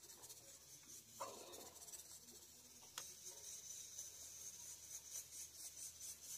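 Faint rustling and scraping of a perforated metal spatula tossing cooked cumin rice in a kadai, with a short scrape about a second in and a sharp click about three seconds in, over a steady hiss.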